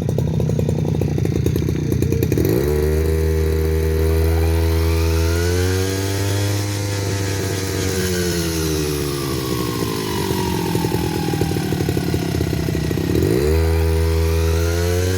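Two-stroke engine of a Tasco 33PRO backpack brush cutter running and being throttled. It runs low for the first couple of seconds, revs up, climbs higher and then slowly eases off, dips near the end and revs up again.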